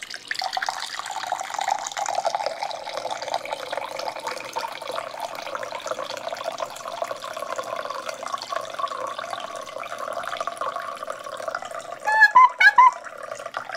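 Filtered water running steadily from a Sagan Life AquaBrick water filter's outlet into a drinking glass. Near the end come a few loud, short squeaks.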